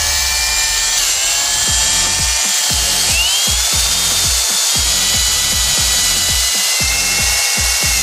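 Cordless drill spinning a wire-wheel brush against a battery cable terminal, scrubbing corrosion down to bare copper. The motor whine dips in pitch about a second in and climbs back near the middle, over an uneven low chatter from the brush on the metal.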